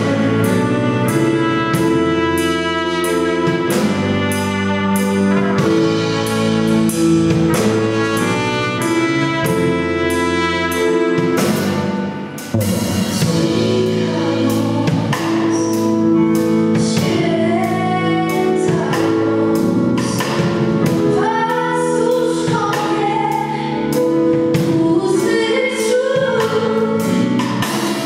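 Live band performing a Christmas carol: a woman singing into a microphone over a drum kit, bass guitar and trumpet, with a steady drum beat. The music dips briefly about twelve seconds in.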